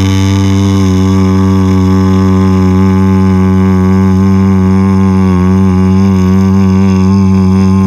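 A long, steady, low "mmm" hum, the drone of a running microwave, held at one pitch with a slight waver about five seconds in.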